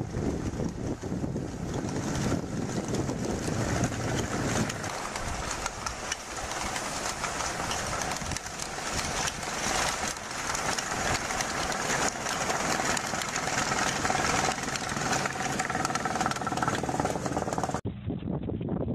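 A vehicle engine running steadily, with a noisy, rushing character. It cuts abruptly to a different, duller recording just before the end.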